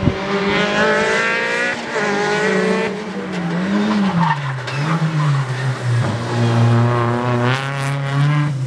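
Peugeot 206 rally car's engine at speed. Its note drops and wavers about four seconds in as the car slows and changes down for a chicane, then climbs again as it accelerates away past the listener.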